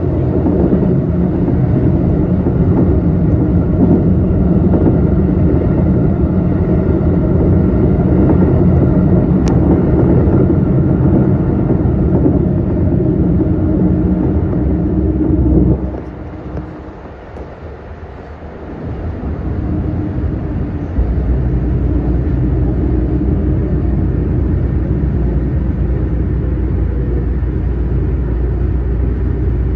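Electric commuter train running, heard from just behind the driver's cab: a steady rumble of wheels on rail. About 16 seconds in it drops sharply quieter for a few seconds, then comes back with a deep low hum added as the train nears a station platform.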